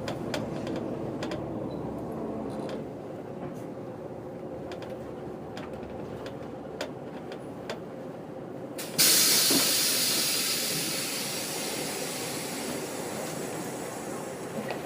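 Setra 315 UL bus running, heard from inside the cabin, with scattered rattles and clicks. About nine seconds in, a sudden loud hiss of compressed air starts and slowly fades: the bus's pneumatic system venting air as it comes to the announced stop.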